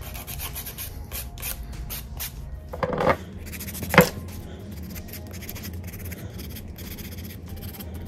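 Nail buffer rubbed back and forth over fingernails in quick, scratchy strokes. A louder knock comes about three seconds in and a sharp knock about four seconds in, like the buffer or a small object tapped on the table.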